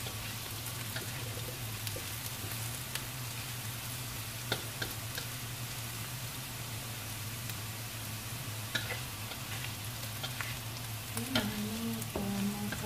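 Tempeh strips sizzling steadily as they fry in oil in a wok, with a spatula scraping and stirring against the pan a few times. A short low hum comes near the end.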